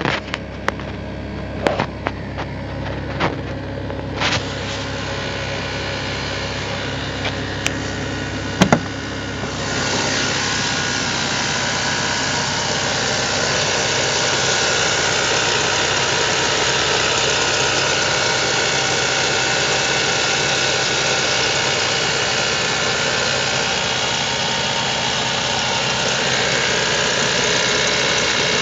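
Audi A3 1.8-litre petrol engine running steadily at idle, with a few sharp clicks in the first nine seconds. About ten seconds in, a louder, steady hissing whirr joins and keeps on; this is the 'strange sound' the owner is asking about.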